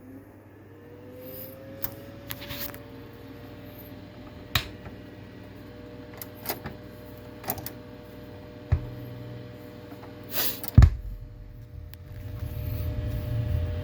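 Clicks and knocks from a record player and vinyl record being handled, over a faint steady tone that glides up in pitch early on and then holds. A heavier thump comes about eleven seconds in, and a low rumble builds toward the end.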